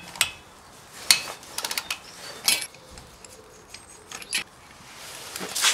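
Socket wrench with a 21 mm socket and extension working the lug nuts of a truck wheel: scattered metallic clicks and clinks, with a quick run of clicks about one and a half seconds in.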